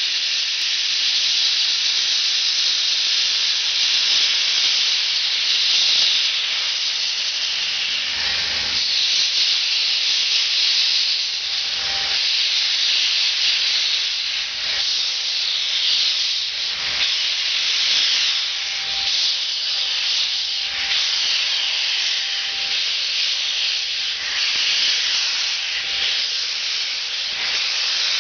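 QJ 2-10-2 steam locomotive moving off slowly with its cylinder cocks open, blowing steam in a loud, steady hiss, as is usual while the cylinders are cleared at a start. A few soft thumps sound under the hiss every couple of seconds.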